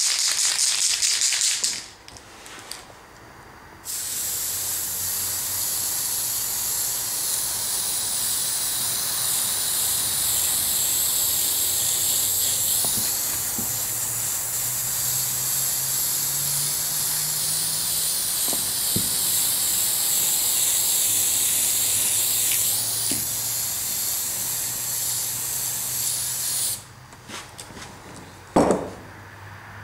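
Tamiya aerosol spray-paint can being shaken, its mixing ball rattling rapidly, for the first two seconds or so. About four seconds in, the spray hisses steadily for some 23 seconds, then stops. A single sharp knock comes near the end.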